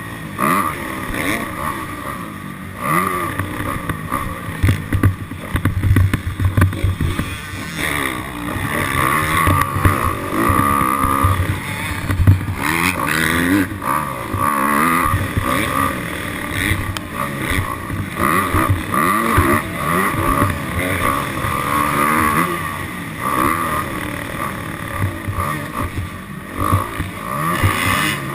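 Dirt bike engine revving up and falling back again and again as it is ridden, with wind buffeting the microphone.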